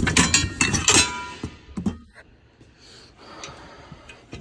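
Metal clinking and clanking as a new steel suspension arm is handled and lifted out of its cardboard box, with several sharp clinks in the first two seconds, some ringing briefly, and a few more near the end.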